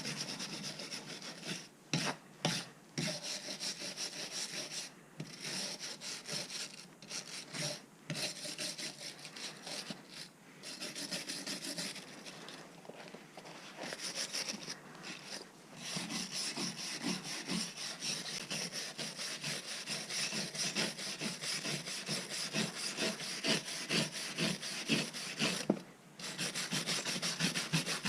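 Corrosion being scrubbed by hand off an aluminium Ridgid pipe wrench with an abrasive, a scraping rub in quick back-and-forth strokes, broken by short pauses.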